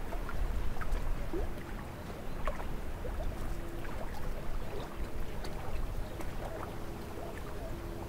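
Outdoor ambience: a steady low rumble with faint short chirps and ticks scattered through it.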